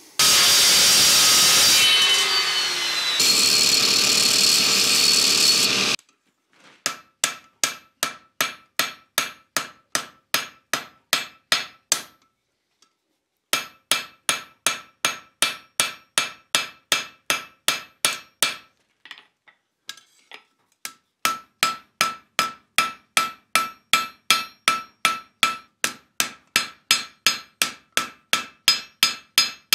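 Hand hammer striking a small piece of red-hot 1095 steel on an anvil, about two and a half ringing blows a second with two short pauses, thinning out its edge to become an axe's cutting edge. It is preceded by about six seconds of loud, steady mechanical noise.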